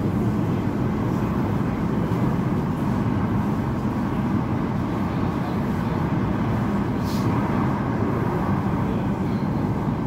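Class 345 electric train running steadily through a tunnel: a continuous low rumble of wheels on rail, with a brief high hiss about seven seconds in.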